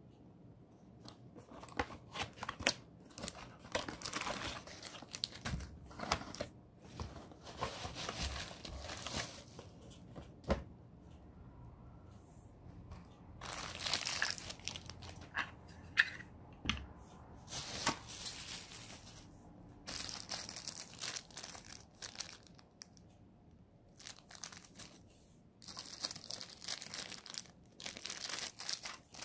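Packaging crinkling and tearing in irregular bursts, with scattered sharp clicks and knocks and a few short pauses.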